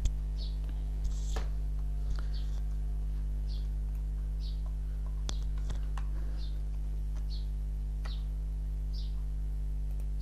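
Steady low electrical hum, with a few sharp clicks of a computer mouse.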